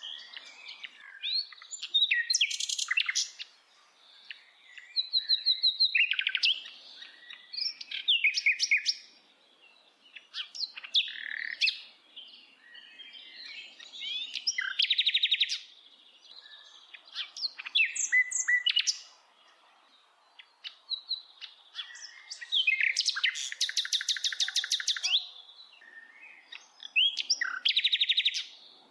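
A bird singing in varied phrases of high chirps, short whistled slurs and fast trills, each phrase a second or two long, with brief pauses between them.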